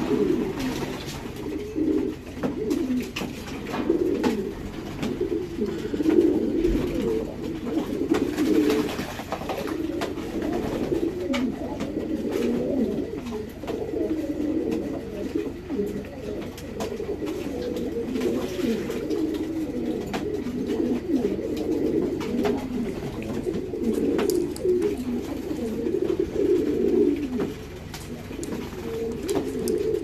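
Many domestic pigeons cooing together in a low, overlapping chorus, with scattered faint clicks.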